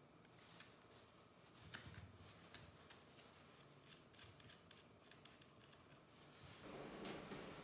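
Faint metallic clicks and ticks of a small spanner and hands working the screw on a MIG/MAG welding hose package's connector, with louder handling noise rising near the end.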